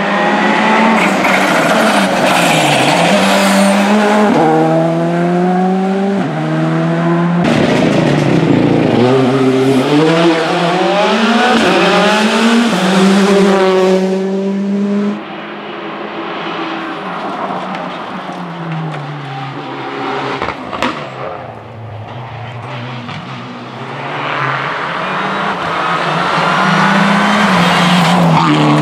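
Rally car engines revving hard, the pitch climbing and dropping again and again as they shift up through the gears, over several separate passes. The middle stretch is quieter and farther off, then another car comes in loud near the end.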